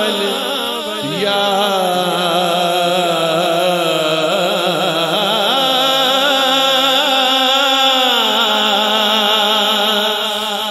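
A man singing a devotional Urdu/Punjabi kalam, unaccompanied by speech, in long held notes whose pitch wavers and slides, amplified through a microphone and sound system.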